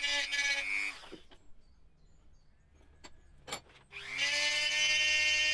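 Dremel rotary tool with a round burr bit running at a steady high whine as it roughens the broken cylinder-head lug. It is switched off about a second in and winds down, leaving a quiet gap with a couple of small clicks. About four seconds in it is switched on again and spins back up to a steady whine.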